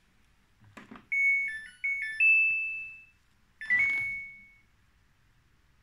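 Samsung tumble dryer control panel: a button click, then its electronic power-on tune, a short run of stepped beeping notes ending on a longer fading note. A second click and a single beep follow as two buttons are pressed together to start the dryer's check mode.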